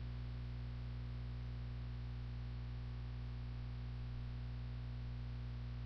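Steady electrical mains hum with a low buzz and a constant hiss underneath; nothing else happens.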